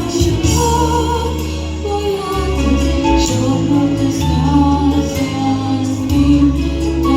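A song: a singing voice carrying a melody over instrumental accompaniment with held bass notes.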